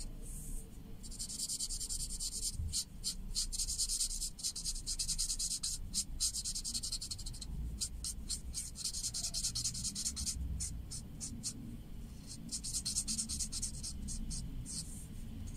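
Felt-tip marker scratching on paper in quick back-and-forth colouring strokes, in runs of a second or several seconds with short pauses between.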